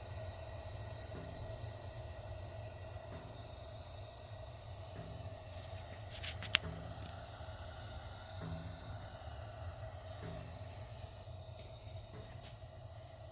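Gas water heater flame burning with a steady hiss and low rumble; a single sharp click about halfway through.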